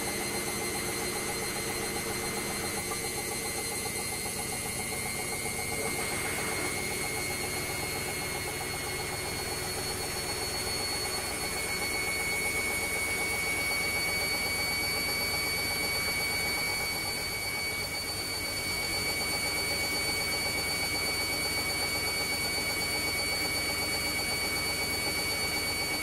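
Aldi front-load washing machine in its final high-speed spin (set to 1200 rpm): the drum and motor run with a steady high whine that edges up a little in pitch about halfway through, as the water is spun out of the clothes.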